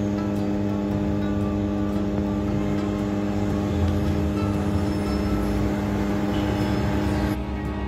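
Steady machine hum with several constant tones over a low rumble, which drops and changes near the end.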